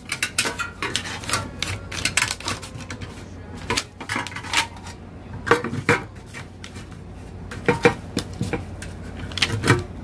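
Thin sheet of a hand-made cable-tray model being bent and pressed into shape by hand, making irregular crinkling and clicking.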